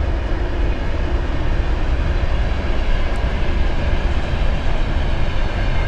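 Freight train passing, a steady noise heaviest in the low end.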